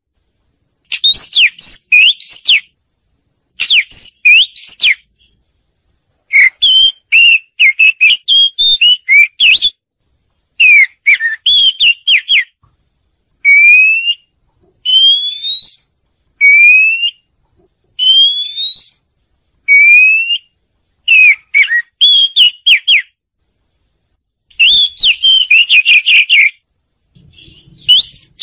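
Oriental magpie-robin singing: loud phrases of clear whistled notes and quick sweeping trills, each a second or two long, with short pauses between them. Through the middle, the song turns to a series of single rising whistles.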